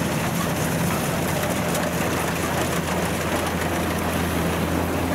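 Kubota DC-93 rice combine harvester's diesel engine running steadily under load while the machine cuts rice, a constant low hum over the rattle of the working machinery.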